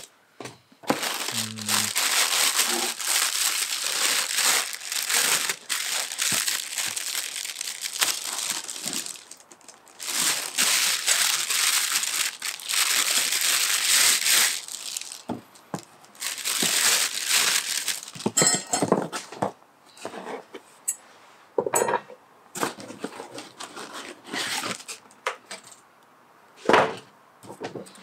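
Plastic packaging crinkling and rustling as it is pulled off and handled while a new circular saw is unpacked from its cardboard box. Long runs of crinkling in the first two-thirds give way to shorter rustles and clicks, with one sharp rustle near the end.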